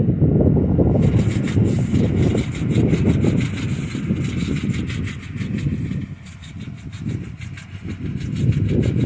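Mechanical blueberry harvester running in the field: a rumbling engine with a fast, regular clicking of about five or six a second. The rumble eases off for a couple of seconds after the middle.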